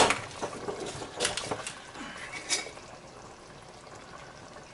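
Plastic bag crinkling in a few short bursts during the first two and a half seconds, over the steady bubbling of a pot boiling on the stove.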